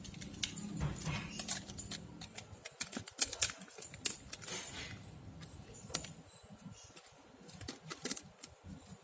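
Small hard clicks and clinks of phone housing parts and tools being handled, coming irregularly and thinning out in the second half.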